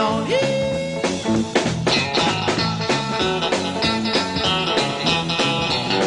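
Country-rock band playing an instrumental break: a guitar lead with a bent note near the start, over bass and drums keeping a steady beat.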